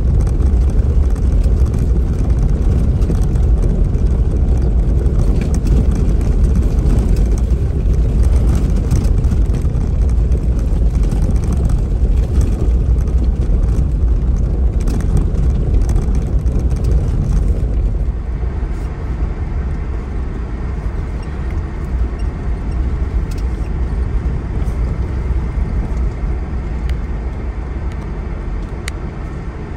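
Off-road vehicle driving a rough dirt trail: a steady low rumble of engine and tyres with scattered knocks, easing off a little about two-thirds of the way through.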